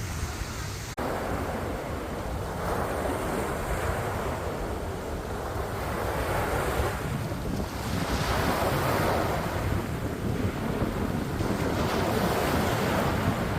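Sea waves washing onto the shore, swelling and falling back every few seconds, with strong wind buffeting the microphone in a constant low rumble.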